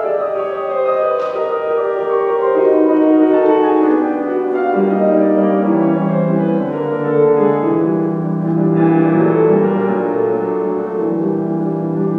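Grand piano playing a classical song accompaniment: cascading runs of notes that fall in pitch, with deeper sustained notes entering about five seconds in.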